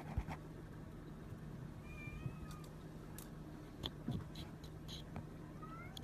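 A cat giving a few soft, high-pitched mews: one about two seconds in and a rising one near the end, with a few light clicks and taps in between.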